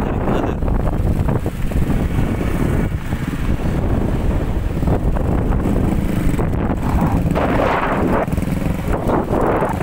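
Heavy wind rumble on the microphone mixed with motor scooter engines running, surging now and then.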